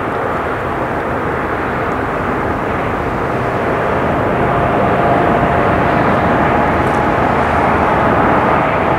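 Jet airliner's engines: a steady roar that slowly grows louder as the plane approaches, with a whine coming in about halfway through.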